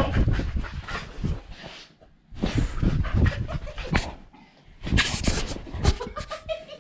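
Jostling bumps and rubbing from a GoPro strapped to the back of a Miniature Bull Terrier running zoomies, mixed with the dog's panting. There are two brief lulls, about two seconds in and again past the middle.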